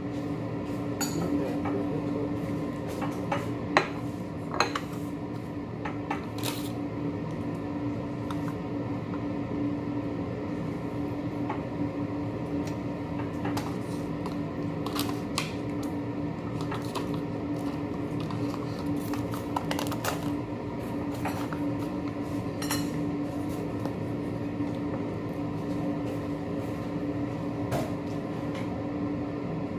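Utensils and dishes clinking now and then as people eat a meal, with sharp taps scattered through, over a steady low hum.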